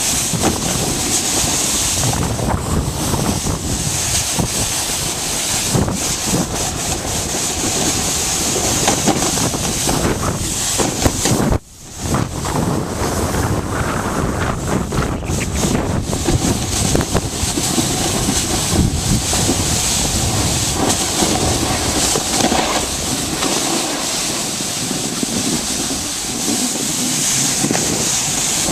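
Wind rushing over a handheld camera's microphone while snowboarding downhill, mixed with the board scraping over the snow. The noise cuts out for a moment about twelve seconds in, then comes straight back.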